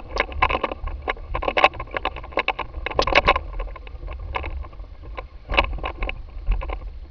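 Airflow buffeting a camera on a hang glider's wing tip in flight: a steady low wind rumble with dense, irregular rattling clicks that come in clusters, easing off near the end.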